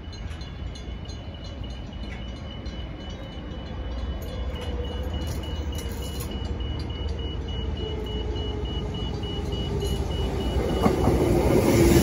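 Transperth electric suburban train approaching and slowing into the platform, its motor whine slowly falling in pitch and growing louder as it draws near. A level-crossing warning bell rings rapidly in the background and stops near the end.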